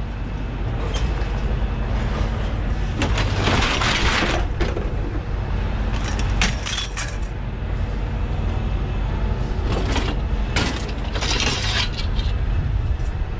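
Scrap metal clattering and scraping as it is pulled loose from a tangled pile, in three noisy bursts, over a steady low engine hum.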